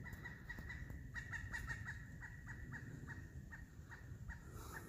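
Pileated woodpecker calling: a long run of short notes, several a second and unevenly spaced, each dropping slightly in pitch.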